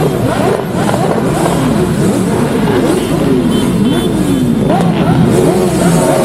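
Several motorcycle engines revved over and over, their pitch climbing and dropping in quick overlapping blips above a steady low engine sound.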